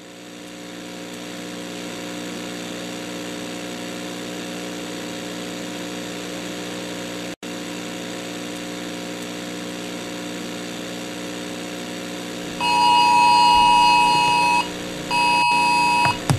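A steady low electronic hum fades in and holds, dropping out for an instant about seven seconds in. Near the end, a loud two-pitch Emergency Alert System attention tone sounds twice: a burst of about two seconds, then a shorter one.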